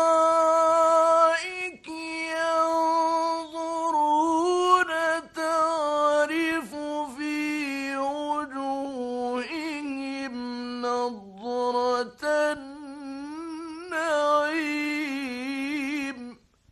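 A male reciter chanting Quranic verses in the mujawwad style: long held notes with ornamented melodic turns and a wavering pitch, broken by a few short breath pauses, stopping just before the end.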